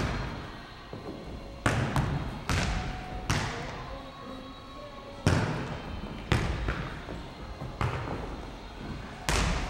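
A futnet ball being kicked and bouncing on a wooden sports-hall floor during a rally. About seven or eight sharp thuds come at uneven intervals, each echoing in the large hall.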